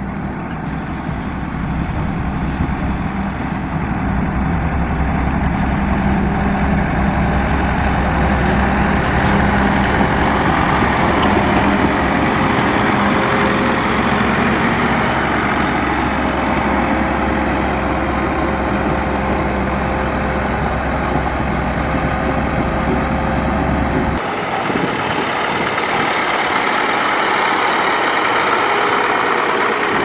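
Motor grader's diesel engine running steadily with a deep, even rumble. About 24 seconds in the sound changes abruptly: the deep rumble drops out and a lighter engine drone carries on.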